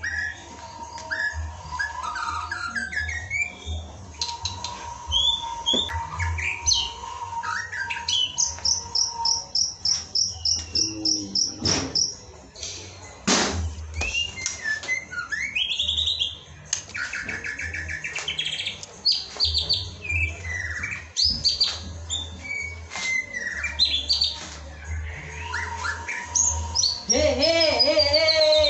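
White-rumped shama (murai batu) singing a varied song of clear whistles, chattering trills and quick runs of repeated high notes. Near the end a louder, lower falling sound comes in over it.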